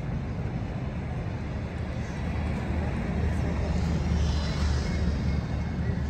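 Low, steady engine rumble of passing traffic, swelling and growing louder about halfway through.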